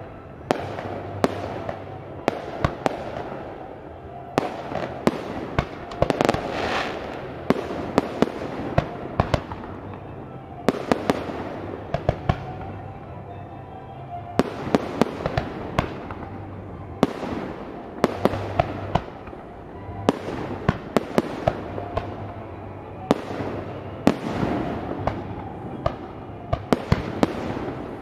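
Aerial firework shells bursting: dozens of sharp bangs and crackles at irregular intervals, some in quick clusters. Under them, orchestral soundtrack music plays over the display's loudspeakers.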